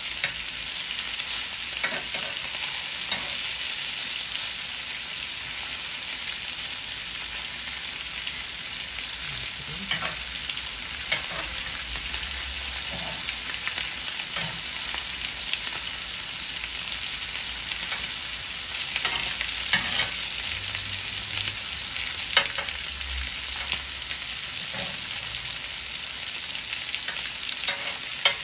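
Ribeye steaks sizzling in butter in a ridged cast-iron grill pan: a steady frying hiss with a few sharp clicks scattered through it.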